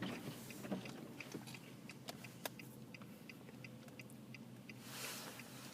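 Faint crunching and clicking of someone chewing ridged potato chips inside a car.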